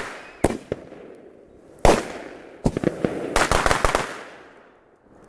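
Fireworks going off close by: single sharp bangs about half a second in and near two seconds, then a rapid crackling volley of bangs around three to four seconds that dies away.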